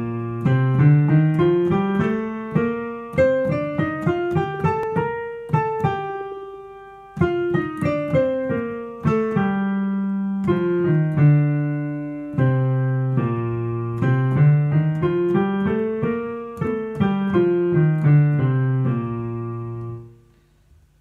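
Digital piano playing a B-flat major scale with both hands together, at an even pace up about two octaves and back down, twice over, ending on a held low note that stops shortly before the end.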